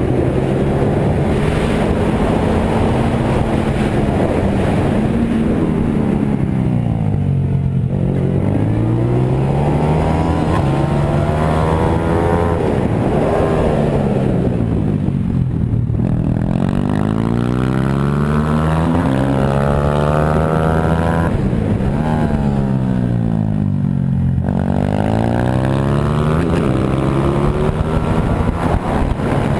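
Pit bike engine running hard, its pitch falling as the throttle is eased off and then climbing again as it accelerates, three times over about every eight seconds.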